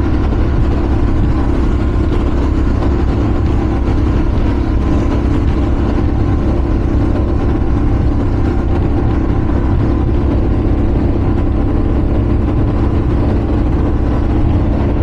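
The twin engines of a 2009 Donzi 38 ZRC offshore performance boat, about 2,400 horsepower combined, running steadily underway: a loud, low, even drone that holds the same pitch throughout.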